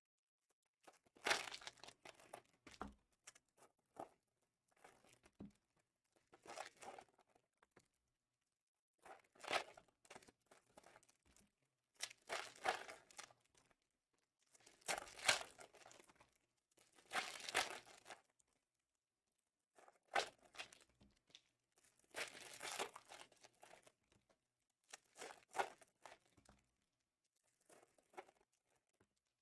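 Plastic and foil card-pack wrapping crinkling and rustling as it is handled, in about ten separate bursts of a second or two with short pauses between.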